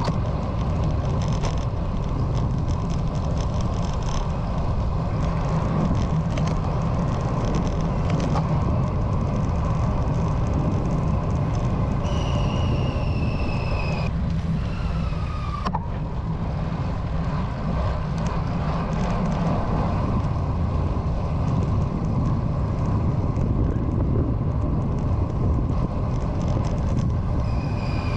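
Wind buffeting the microphone and tyre noise from riding along city streets, a steady low rush with passing traffic. A faint falling whine comes twice, once about halfway through and again near the end.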